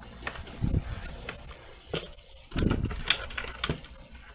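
Handling noise: scattered light clicks and a couple of short dull thumps as small plastic gear and cables are picked up and moved about.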